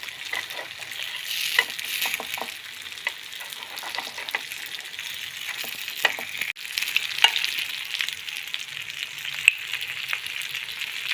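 Batter-coated aval and coconut balls deep-frying in oil in a kuzhi paniyaram pan: steady sizzling with scattered sharp pops and crackles.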